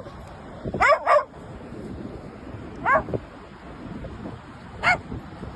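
A dog giving short, high-pitched yelps: two close together about a second in, another at about three seconds and one more near the end, over a steady rush of background noise.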